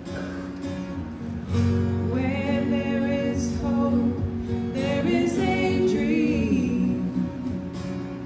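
Two women singing a song together into microphones over instrumental accompaniment, the voices coming in about two seconds in with held notes and vibrato.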